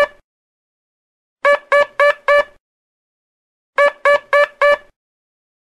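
Morse code letter H sounded as a practice tone: groups of four short, evenly spaced beeps of one steady mid-pitched tone. The last beep of a group comes at the very start, then two full groups of four follow about two and a half seconds apart.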